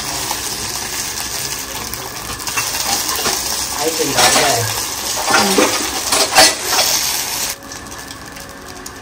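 Fish pieces frying in oil in a small black iron kadai, sizzling, while a perforated steel skimmer scrapes and clinks against the pan as they are turned. The loudest clinks come about six seconds in, and the sizzle falls away near the end as the fish is lifted out.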